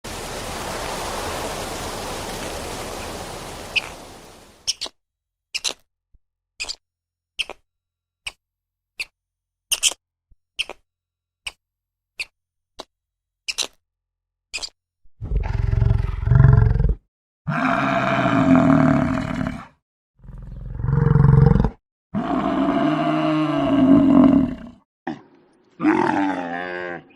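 A hiss, then a dozen sharp clicks a little under a second apart, then a large animal's deep, drawn-out roars, several in a row with short gaps between them.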